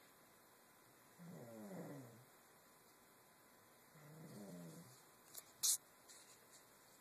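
Snoring: two slow snores, each about a second long and falling in pitch, about three seconds apart. A short sharp click, louder than the snores, comes a little after the second snore.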